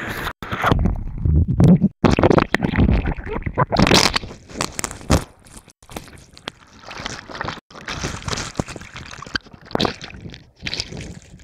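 River rapids water churning and splashing around a jostled camera, heard as muffled rumbling and crunching knocks. It is loudest in the first five seconds, then turns to fainter, irregular splashing.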